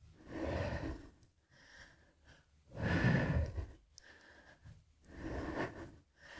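A person breathing audibly, slow breaths in and out, one every two to three seconds, during a gentle exercise.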